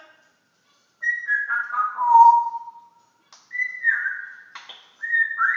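African grey parrot whistling: a long whistle that steps down in pitch about a second in, then two shorter whistles that each drop in pitch, the last one near the end.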